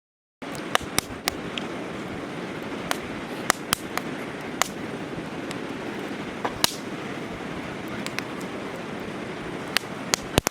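Campfire burning, a steady rushing hiss with frequent sharp, irregular crackles and pops, starting about half a second in.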